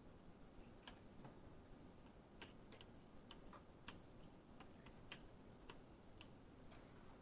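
Faint, irregular taps and clicks of chalk writing on a blackboard, over a quiet room.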